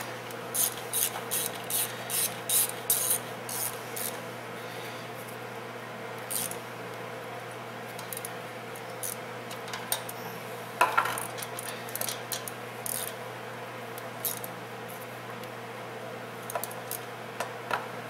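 Metal clicks and scraping of a hand tool running down and tightening the EGR valve's mounting nuts, in quick clusters for the first few seconds and scattered later, over a steady low hum.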